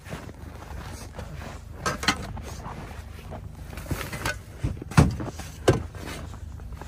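Dull thuds and knocks as frozen muskrat carcasses are handled and dropped onto an SUV's cargo floor, a few at first and the loudest about five seconds in, over a low steady rumble.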